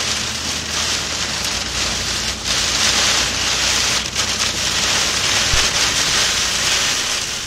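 Heavy rain pelting a car's roof and windshield, heard from inside the cabin as a dense, steady hiss, with a low drone from the moving vehicle underneath.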